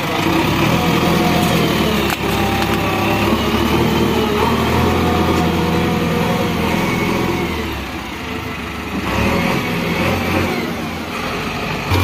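JCB 3DX backhoe loader's diesel engine running under working load as the front loader bucket is raised. A higher whine rises and falls over the engine note. The engine eases off about eight seconds in and picks up again.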